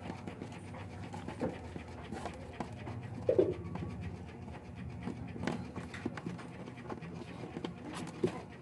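Handling noise as a power lead and wires are pushed through a hole in a wooden cabinet: scattered small clicks and rustles, with one short squeak about three seconds in.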